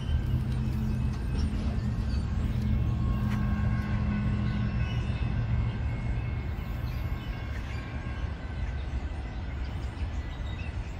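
Low, steady rumble of a train moving away from the grade crossing, fading after about five seconds.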